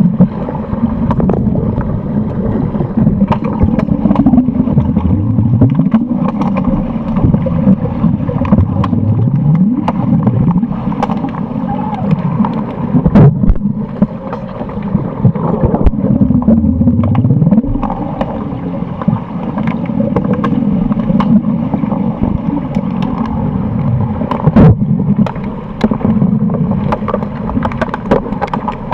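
Underwater hockey heard through an underwater camera: a steady muffled rumble and gurgle of water and bubbles, with sharp clacks now and then from sticks and the puck striking the tiled pool bottom.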